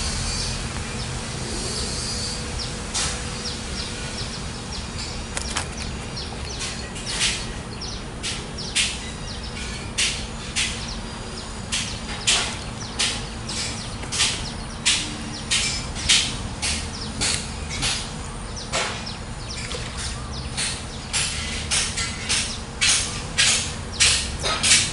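A series of sharp clicks or taps, sparse at first and then about one or two a second, over a steady outdoor background with a low hum.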